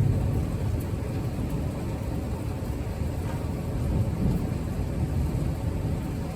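Thunderstorm noise: a steady low rumble, swelling slightly a few times, as thunder rolls in the distance.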